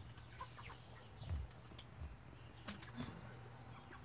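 Faint rustling of twigs with a few scattered soft clicks and low thumps as a hen is caught and lifted from among bushes.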